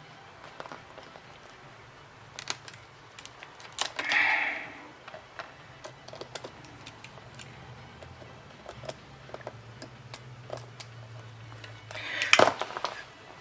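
Scattered light clicks and taps of small repair tools on the tablet as the damaged USB charging port is worked out, over a faint steady hum. A brief louder sound comes about four seconds in, and a denser cluster of clicks near the end.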